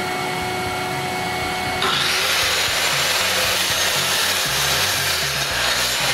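Electric mitre saw crosscutting a timber board. The motor runs with a steady whine, then about two seconds in the spinning blade bites into the wood and a loud, harsh cutting noise takes over.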